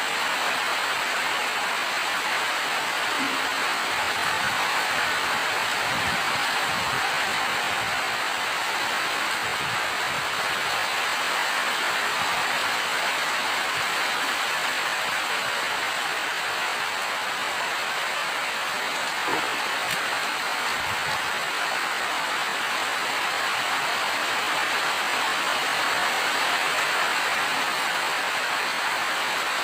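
Steady rain falling, an even hiss, with a few faint low knocks of heavier drops.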